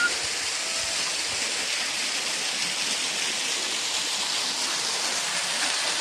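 Waterfall running low, heard from close to its base: a steady rush of falling water.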